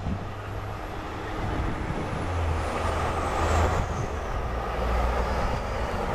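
LNER A4 three-cylinder Pacific steam locomotive 60019 Bittern working a train past at a distance, a steady rush of exhaust and running train noise over a low rumble.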